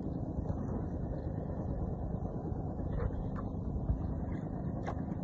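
Steady wind and sea noise on a small fishing boat, over a low steady hum, with a few faint clicks about three seconds in and again near the end.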